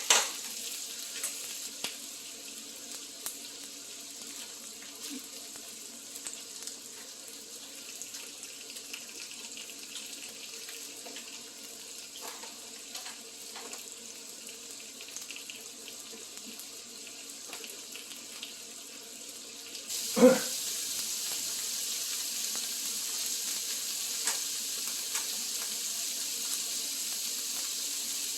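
Steady sizzling of duck meat on a grill, with small clicks of chopsticks and eating. About twenty seconds in there is one loud knock, and after it the sizzling grows louder.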